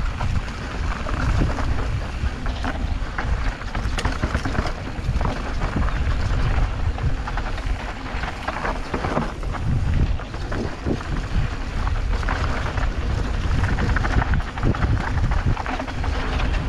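Mountain bike riding fast down a dirt singletrack: a steady rumble of wind on the microphone and tyres on the trail, with frequent short knocks and rattles from the bike over bumps.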